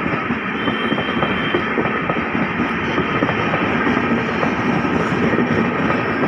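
LHB passenger coaches of an express train running past at speed: a steady rumble of wheels on rail, dense with rapid clicks.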